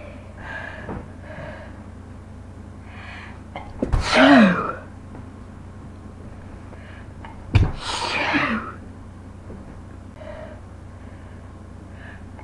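A woman sneezing twice, about four seconds apart. Each sneeze starts sharply and lasts about a second, and the first trails off with a falling pitch. Faint breaths come between them.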